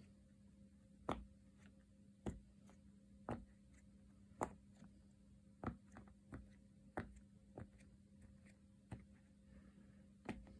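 Silicone push pop fidget toy, its bubbles pressed in one at a time by fingertips: about ten short pops, roughly one a second, not evenly spaced. A faint steady hum runs underneath.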